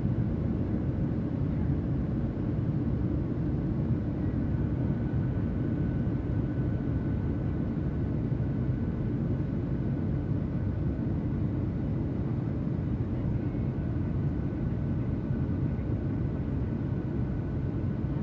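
Steady airplane cabin drone of engines and airflow, a constant low rumble with a faint steady whine above it.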